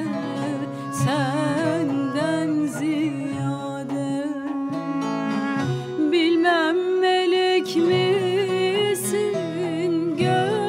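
Turkish folk song (türkü) played live: a woman singing a wavering, ornamented melody over plucked bağlama, with kemane and duduk joining in.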